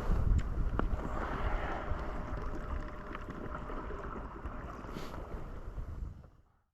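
Wind buffeting the microphone in an open boat on the water, a rough low rumble with a few small knocks, fading out near the end.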